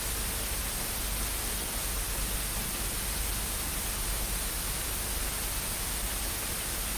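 Steady static hiss, even and unchanging, with no voices in it.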